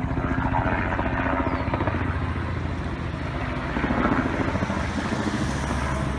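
A car drives past close by on a wet street and is loudest about four seconds in. Low wind rumble buffets the microphone throughout.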